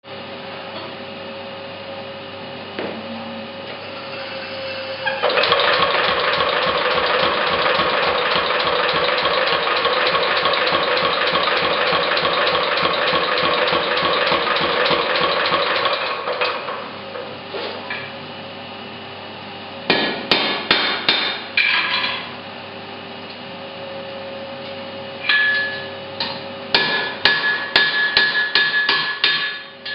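Mechanical power hammer pounding hot iron in a fast, continuous run of blows for about ten seconds, over the steady hum of the running machine. After a pause come two bursts of separate, ringing hammer strikes on metal.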